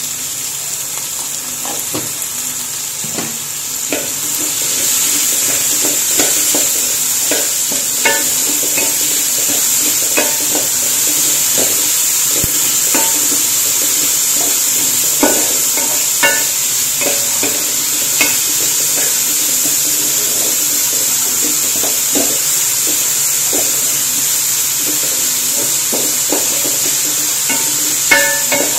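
Diced vegetables (carrot, capsicum, green beans, peas) sizzling in hot oil in a metal pan while a wooden spatula stirs them, scraping and knocking against the pan. The sizzle grows louder about five seconds in and holds steady.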